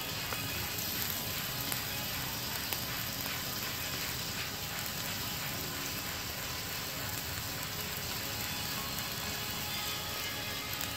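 Kebabs and bacon-wrapped jalapeño poppers sizzling steadily over hot charcoal on a grill, with faint music in the background.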